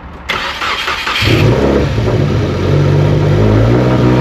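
Subaru WRX's turbocharged FA20 flat-four being started: a short burst of cranking, then the engine catches about a second in and keeps running steadily. It stays running now that the intercooler and mass airflow sensor are connected.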